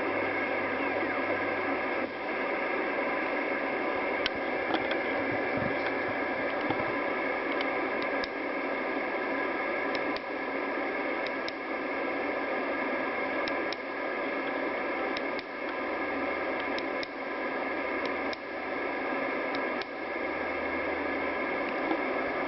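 Kenwood TS-680 HF transceiver receiving band noise through its speaker: a steady hiss of static with faint steady tones in it, scattered clicks and a few brief drops in level.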